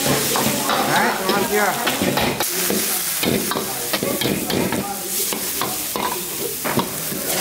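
A long-handled metal ladle stirring and scraping beef and greens in a hot wok, in quick repeated strokes, over steady sizzling from the frying food.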